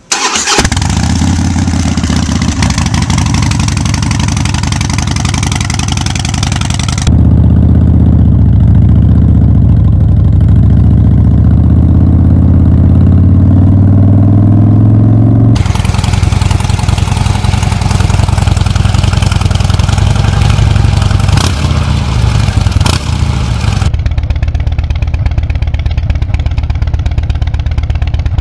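Harley-Davidson Dyna Wide Glide's air-cooled V-twin running loud through Vance & Hines aftermarket pipes, idling with a lumpy beat and revved up and down, in several clips spliced together.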